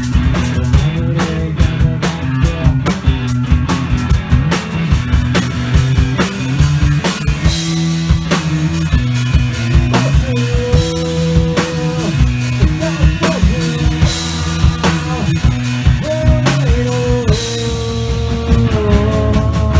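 Rock band playing: distorted electric guitars and a drum kit with a steady beat, and a male lead vocal singing held notes over them.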